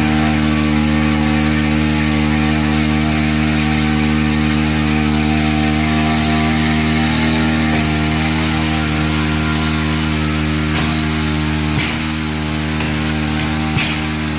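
Small engine of a motorized sprayer running at a steady speed, with a couple of sharp clicks near the end.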